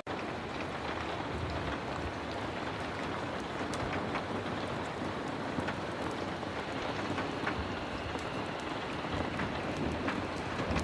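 Heavy rain falling steadily, a dense even hiss with scattered sharp ticks.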